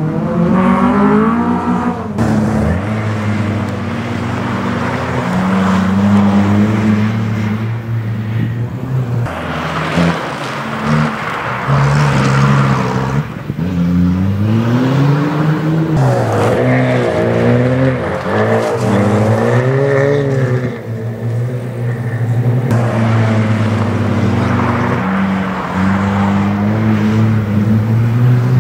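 Race-car engines revving hard: the pitch climbs under acceleration and drops back at each gear change or lift several times, with a steady engine drone in between.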